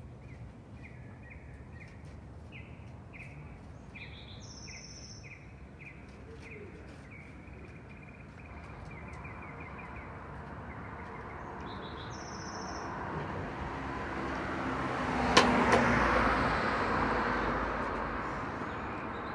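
Small birds chirping in short, quickly repeated calls. A vehicle passes, its rushing noise swelling over several seconds. It peaks with a sharp click about three-quarters of the way through, then fades.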